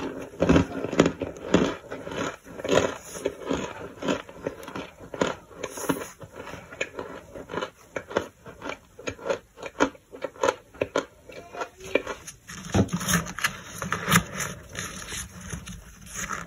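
Chunks of toasted starch crunching and squeaking, a rapid, irregular run of short crunches.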